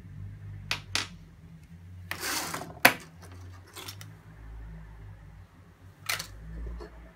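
Light clicks and clinks of small workshop parts (brass handle pins, a steel caliper) being picked up and set down on a wooden workbench, with a short rustle of sandpaper sheets being handled about two seconds in; the sharpest click comes just after the rustle.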